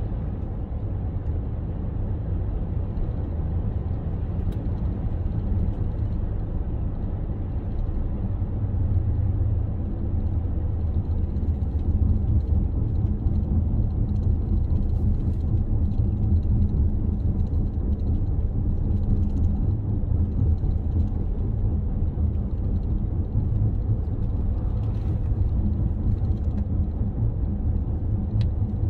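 Car driving along a road: a steady low rumble of engine and tyres, growing slightly louder about ten seconds in.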